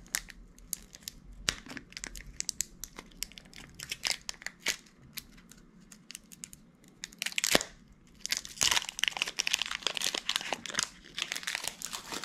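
Foil wrapper of a Pokémon card booster pack crinkling and tearing as it is opened by hand: scattered sharp crackles at first, one loud crack about seven seconds in, then a few seconds of dense crinkling.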